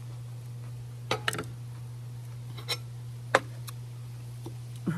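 A few short clicks and clinks of serving tongs and forks on dishes as salad is served and eaten, the sharpest about two thirds in, over a steady low hum.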